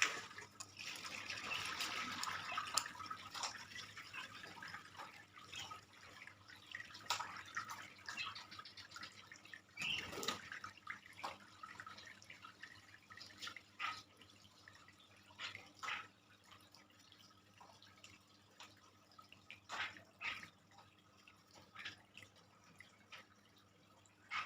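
Pet starling (jalak) chattering densely at first, then giving scattered short, sharp clicks and calls, one every second or two.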